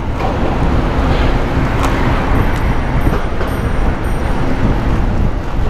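Wind rushing over the microphone of a camera on a moving bicycle, a loud low rumble, mixed with road traffic noise.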